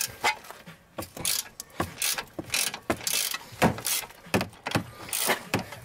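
Hand ratchet clicking in repeated short strokes as the nut on top of the strut shaft is loosened, while the shaft is held still with vice grips.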